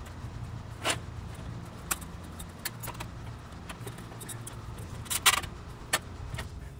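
Metal clinks and knocks as a condenser fan blade and its motor on the fan grille panel are handled: a sharp knock about a second in, and a louder cluster of clanks about five seconds in. A steady low mechanical hum runs underneath.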